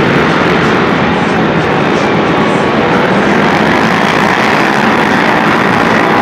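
A pack of racing quad ATV engines running together, a loud, steady, dense drone.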